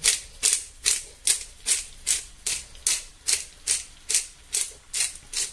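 Hand-twisted pepper grinder grinding peppercorns: a steady run of short grinding strokes, about two and a half a second.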